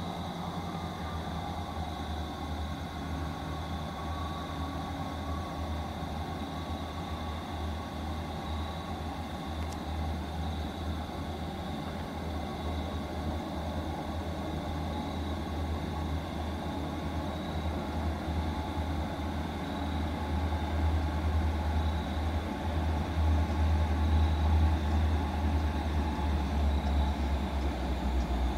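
Low diesel rumble of an approaching freight train led by three EMD SD70M-2 locomotives, growing steadily louder over the last ten seconds or so as the train nears.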